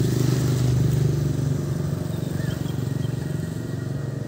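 Outboard motor of a small passenger speedboat running at cruising speed, a steady drone.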